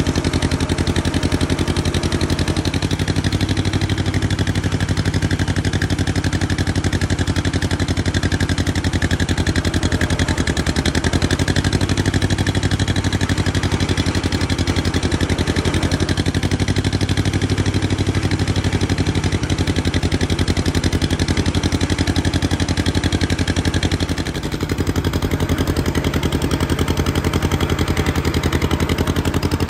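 1956 John Deere 420W tractor's two-cylinder engine running steadily, swelling slightly a few times and dipping briefly near the end.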